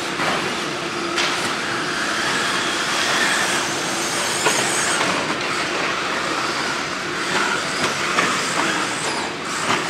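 Radio-controlled 2WD short course trucks racing on a dirt track: a steady noisy mix of electric motors whining, rising and falling with the throttle, and tyres working the dirt.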